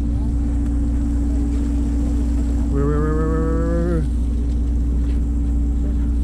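Steady low drone of a sportfishing boat's engine. About three seconds in, a man's voice gives one drawn-out, low, moo-like call lasting about a second.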